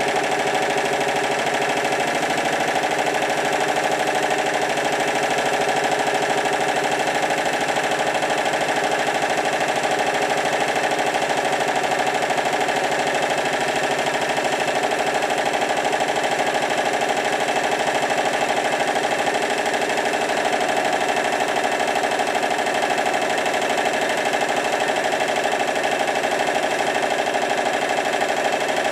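Stuart triple expansion model steam engine running steadily on live steam, with a rapid, even beat from its cylinders and moving parts.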